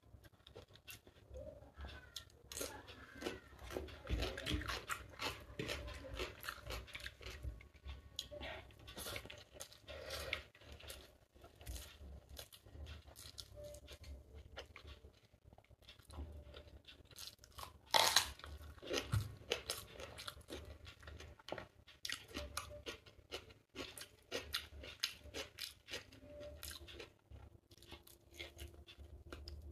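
A person chewing and crunching chicken biryani and raw cucumber slices eaten by hand: a steady run of mouth clicks and smacks, with one louder crunch about eighteen seconds in.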